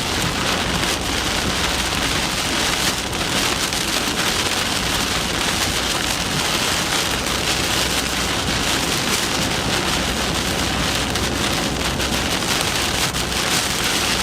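Loud, steady heavy rain falling on a storm chasers' vehicle, an even dense hiss full of fine drop ticks.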